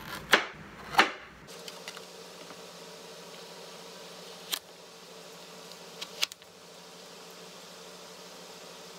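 Chef's knife pressed down through a raw carrot and knocking onto a plastic cutting board: a few sharp knocks, two about a second apart near the start, one around the middle and a quick pair a little later. A faint steady hum runs underneath.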